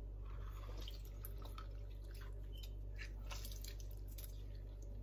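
Lemon juice dripping and trickling from a hand-held metal lemon squeezer onto raw chicken pieces in a bowl, heard as faint scattered drips and ticks over a steady low hum.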